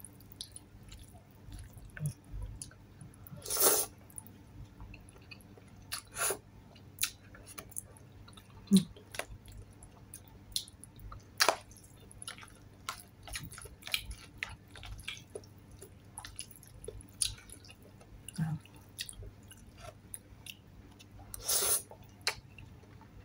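Close-up eating of palabok rice noodles: wet chewing and many short sharp mouth and fork clicks, with two longer slurps of noodles, one a few seconds in and one near the end.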